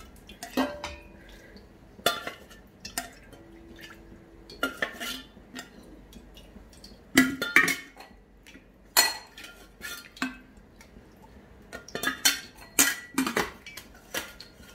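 Metal kitchen utensils and pots clinking and knocking: a dozen or so irregular sharp clinks, a few of them ringing on briefly.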